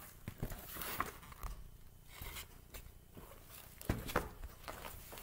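A picture book being handled: faint rustling of its pages with a few soft knocks and clicks as it is lifted and turned around, the clearest about four seconds in.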